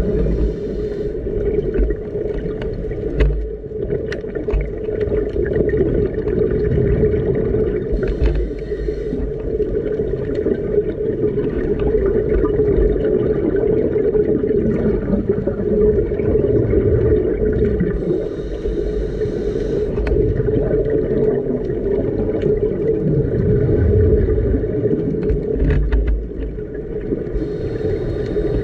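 Underwater drone of a boat's motor heard through the water, a steady hum with several fixed pitches. Irregular low bubbling rumbles and short hissy stretches, the sound of scuba divers breathing and exhaling bubbles, come and go over it.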